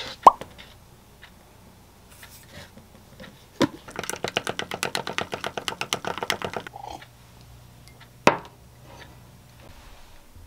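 A spoon stirring protein shake powder in a glass mug: a fast run of clinking taps against the glass, about ten a second for some three seconds in the middle, with single sharp knocks before and after.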